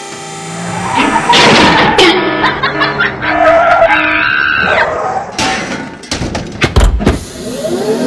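Background music with held, shifting tones, and a run of sharp clicks and knocks about five to seven seconds in.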